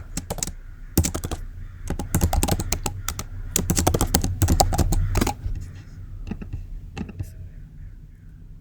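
Typing on a computer keyboard, entering a password: a quick run of keystrokes for about five seconds, then a few scattered keystrokes.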